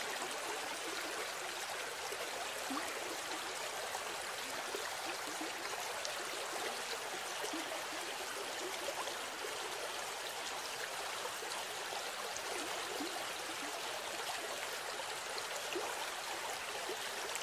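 Fast-flowing floodwater rushing through a street, a steady, unbroken rushing noise.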